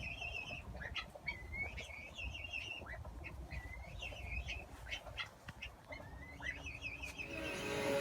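Birds chirping in short, wavering trills, phrase after phrase.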